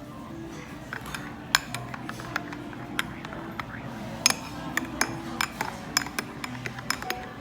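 Repeated light clinks and taps, like dishes and cutlery being handled, over soft background music.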